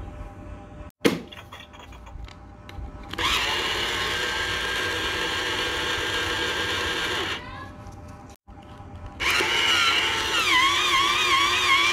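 Electronic Doraemon money box: its small motor whirs steadily for about four seconds, then after a short pause the box plays a warbling electronic tune.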